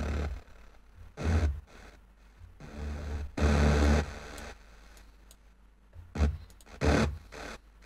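Synthesizer notes from a supersaw patch in FL Studio Mobile, auditioned one at a time on the piano-roll keyboard: about five notes with a strong deep low end, one held for over a second about three seconds in, the others short.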